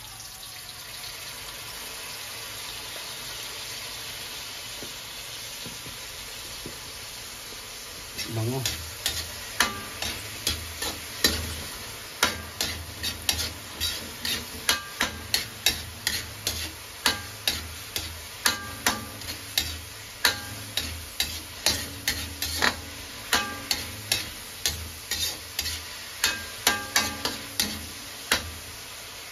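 Tomatoes, onion and garlic sizzling in oil in a metal wok, with fish sauce just poured in. From about eight seconds in, a metal spatula scrapes and knocks against the wok over and over, about one to two strokes a second, as the mix is stirred.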